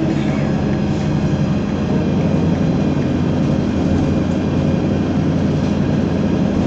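Isuzu Citibus city bus heard from inside the passenger cabin while driving at a steady speed: a steady engine drone mixed with road noise.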